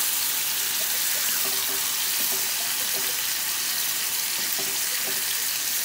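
Marinated quail pieces sizzling in hot coconut oil in a frying pan: a steady, even hiss as the pieces are laid in and moved about with a spatula.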